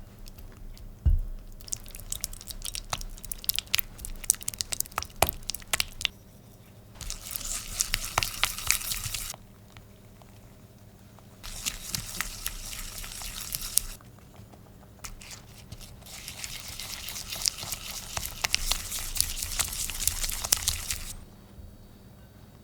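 Tart dough being mixed by hand in a bowl, with soft butter worked with a spatula or whisk: repeated scraping strokes and clicks on the bowl, in four bursts with short pauses between them.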